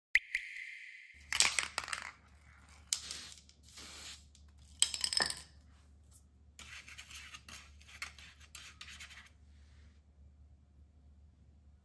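A click and a brief high tone lasting about a second, then uneven bursts of scratching and rubbing: a toothbrush working molybdenum coating onto the rubber edge of a wiper blade, with handling of the blade. The scratching stops about three-quarters of the way through.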